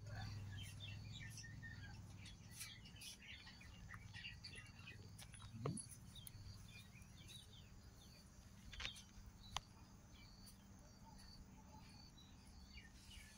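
Faint outdoor ambience with scattered chirps of small birds, a low hum that fades after about six seconds, a short rising sound about six seconds in, and a couple of sharp clicks near the middle.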